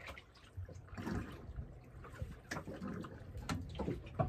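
Sea water lapping and slapping against a small boat's hull, with a few irregular knocks.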